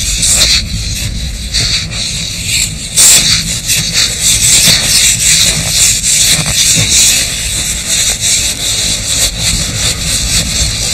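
Gloved hands digging and scraping into packed snow, a rapid run of crunching scrapes with the loudest about three seconds in, over a steady low rumble.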